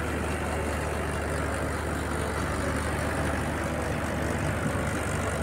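Mahindra 575 DI tractor's diesel engine running steadily, powering a mustard threshing machine that is being fed with dry stalks: a constant low drone with a broad rushing noise over it.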